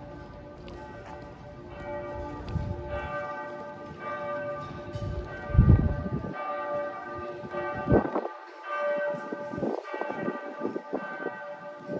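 Church bells ringing, several bell tones sounding together and ringing on. A few loud low rumbles cut across them about six and eight seconds in.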